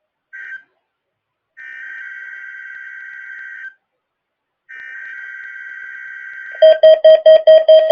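NOAA Weather Radio SAME header data bursts, the digital tones that open a Required Weekly Test: the end of one burst at the start, then two bursts of about two seconds each with a short gap between. Near the end, much louder rapid beeping starts, about five beeps a second.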